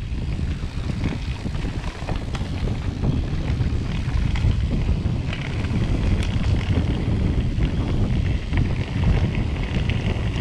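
Wind buffeting an action camera's microphone while a mountain bike rolls along a dirt forest trail, with a steady low rumble and scattered small clicks and rattles from the bike.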